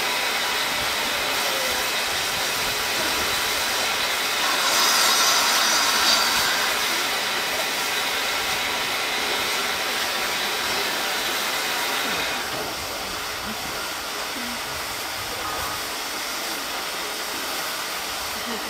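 A steam locomotive hissing steam in a steady, loud rush. It swells louder about five seconds in and drops back a little about twelve seconds in.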